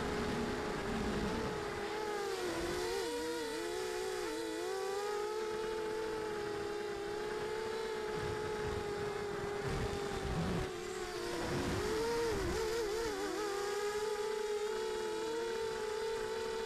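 Small FPV quadcopter's brushless motors and propellers whining, the pitch wavering up and down with throttle changes and dipping sharply about ten seconds in, with wind rushing on the onboard microphone.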